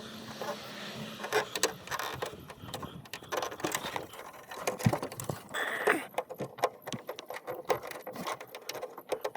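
Irregular clicks, taps and rattles of hands working a wiring connector and latch parts inside a BMW 325i trunk lid, as the loose electrical connector is fitted into place.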